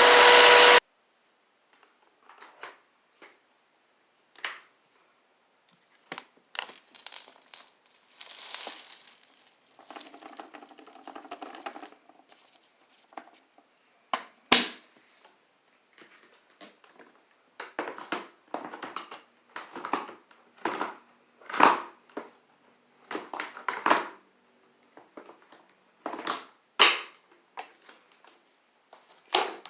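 A Eureka PowerSpeed vacuum cleaner cuts off under a second in. Then comes a string of scattered crunches and crackles, something crunchy being crushed, sparse at first and louder and closer together in the second half.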